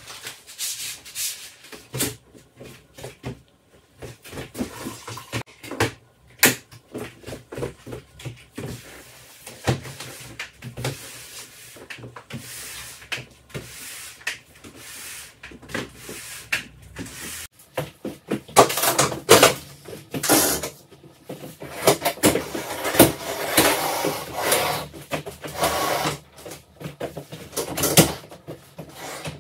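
Things being handled and moved about while a room is rearranged: a run of light knocks and clatters, with louder rubbing and scraping noises over the second half.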